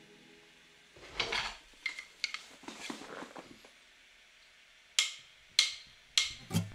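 A paintbrush working on a thin plastic bottle held in the hand: short scratchy strokes and light clicks against the plastic, a few at first, then sharper and more closely spaced near the end.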